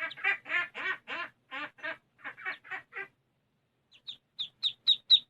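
Ducklings calling: a quick run of short calls, about four a second, for the first three seconds, then after a brief pause a run of high, sharp peeps that grow louder near the end.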